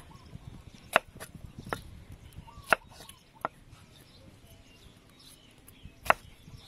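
Kitchen knife cutting cucumber on a wooden cutting board: a handful of sharp, irregular knocks of the blade striking the board, with a pause of a couple of seconds before the last one.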